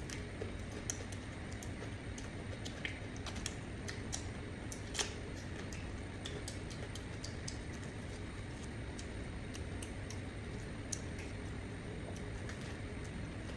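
Scattered light clicks and small crackles at an uneven pace over a steady low rumble, with one louder click about five seconds in.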